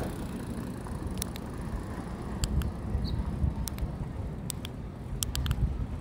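Keyboard keys being pressed: sharp, irregular clicks, some in quick runs of two to four, over a steady low rumble.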